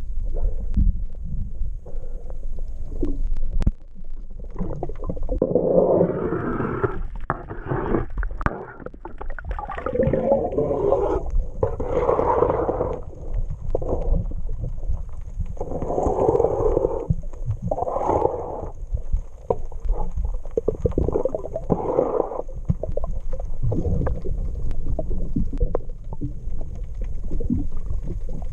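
Scraping and scrubbing strokes on a boat hull, cleaning off small barnacles. The strokes last about a second each and come roughly every two seconds over a steady low rumble.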